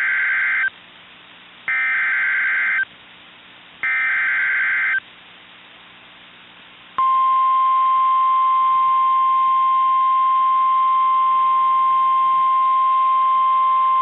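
NOAA Weather Radio alert tones: three Specific Area Message Encoding (SAME) header bursts of about a second each, harsh two-tone digital data sent about a second apart. About seven seconds in comes the steady, single-pitched warning alarm tone. Together they announce a new severe thunderstorm warning being broadcast.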